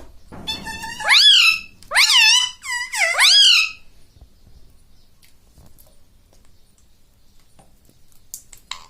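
Pet ringneck parrot vocalizing: four loud, high-pitched calls in quick succession, each rising and then falling in pitch, over the first four seconds, then quiet.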